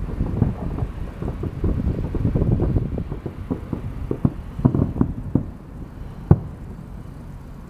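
Aerial fireworks shells bursting at a distance: a dense run of dull booms and crackle that thins out after about five seconds, then one sharp bang a little past six seconds in.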